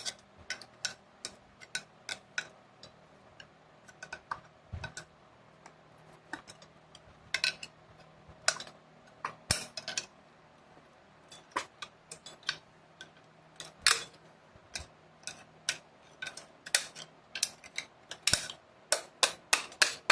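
Sharp metallic clicks and taps of hand tools working a snap ring into a 4L60E input drum, irregular at first, then a fast, even run of taps, about four a second, near the end as the ring is tapped down into its groove.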